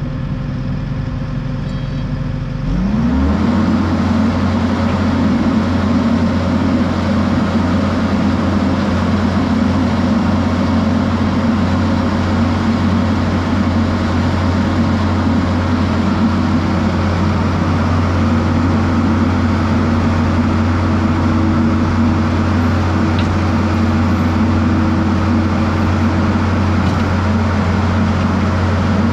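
Kubota loader's diesel engine, idling and then throttled up about three seconds in, its pitch rising quickly and then holding a steady, higher run to power the hydraulics that lift the boom arms and tilt the mower.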